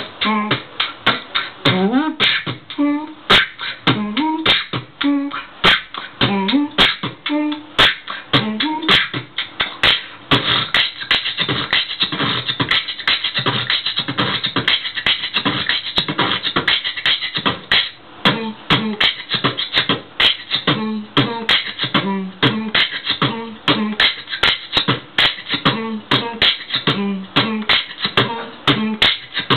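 A boy beatboxing with a handheld microphone cupped to his mouth: a dense, steady rhythm of vocal kick and snare strikes with short hummed notes in between.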